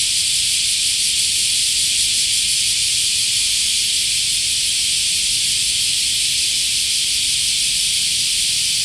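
Dense chorus of cicadas singing in summer heat: a loud, steady, high shrill hiss that does not let up.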